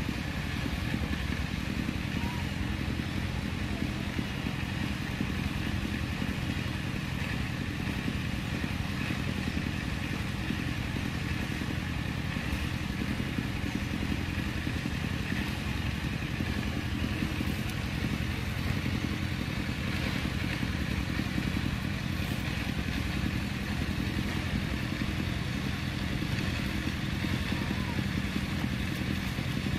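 An engine running steadily nearby, a low even hum that does not change.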